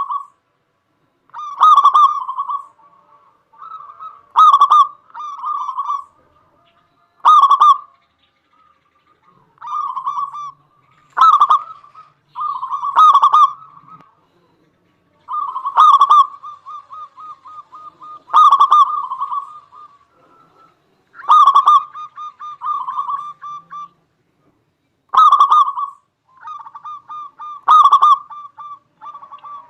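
Zebra dove (perkutut) cooing over and over: each phrase is a loud note followed by a rapid rolling trill, and a new phrase starts every two to three seconds.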